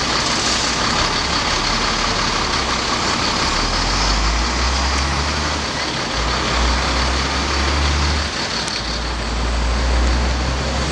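Heavy box truck passing close by, its engine and tyres making a loud, steady rumble, with busy street traffic behind it.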